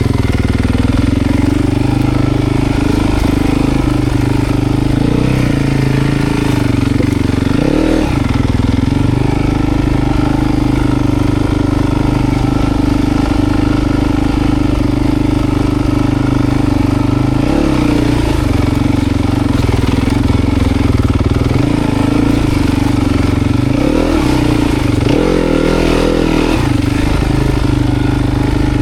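Dirt bike engine running at a steady, fairly constant pitch under way off-road, with a few short changes in engine note as the throttle is worked, about a third of the way in and again near the end.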